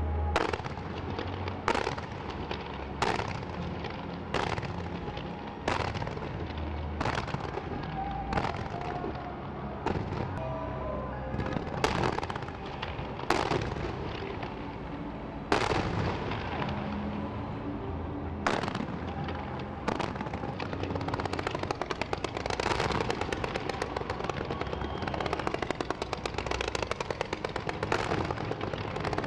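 Fireworks display: a series of sharp bangs about once every second and a half, turning after about twenty seconds into a rapid, continuous crackle of many shots going off together as rows of comets are fired.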